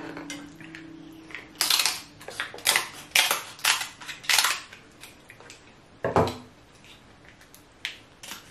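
Kitchen scissors snipping through cooked king crab leg shells, with the shells cracking as they are cut and pried open: a run of sharp crunches and snaps, most of them in the first half, and one heavier crack about six seconds in.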